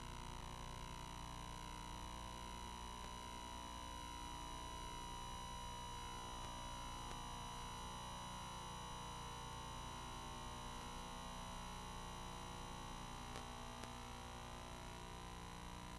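Faint steady electronic tone, like a test beep held without a break, over low electrical hum and tape hiss on an otherwise silent VHS audio track.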